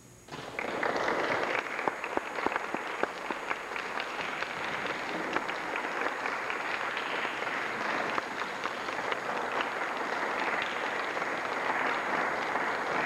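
Audience applauding: clapping breaks out about half a second in and carries on steadily.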